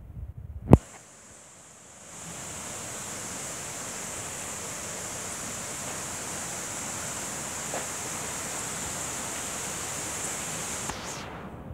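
A single sharp click about a second in, then a steady rushing noise with a thin, high, steady hiss on top that sets in about two seconds in.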